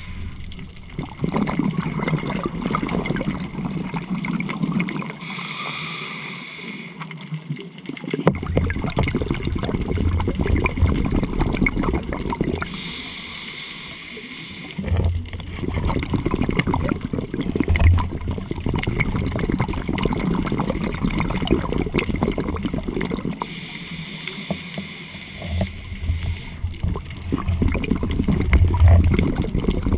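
Scuba diver breathing through a regulator underwater: three hissing inhales, each followed by a longer gurgling rush of exhaled bubbles.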